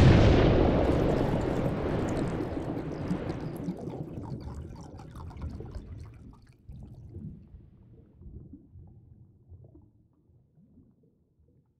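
A loud crash of noise at the start that rolls into a low rumble and dies away over about ten seconds, the hiss fading first: an outro sound effect.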